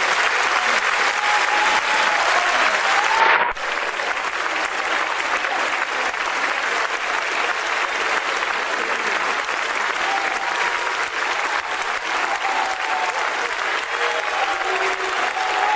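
A large theatre audience applauding, dense and steady clapping with no music playing. The clapping dips briefly about three and a half seconds in.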